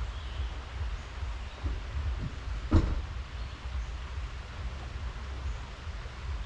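Low, uneven wind rumble on the microphone of an outdoor handheld recording, with a single sharp knock a little before the middle.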